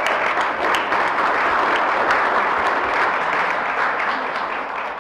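Banquet audience applauding in a large hall, a steady spread of many hands clapping that fades out right at the end.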